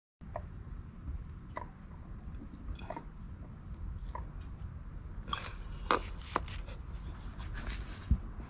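Scattered light clicks and knocks from a PVC pipe coupling being handled and fitted onto a pipe in the hole, over a low steady rumble. The clicks bunch together about five to six seconds in, and a sharper knock comes near the end.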